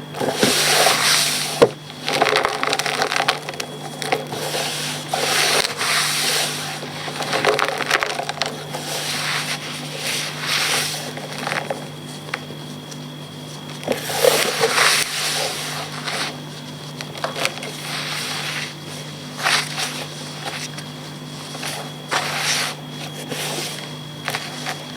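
Reformed gym chalk blocks being crushed and crumbled, in irregular crunching bursts of varying length, over a steady low hum.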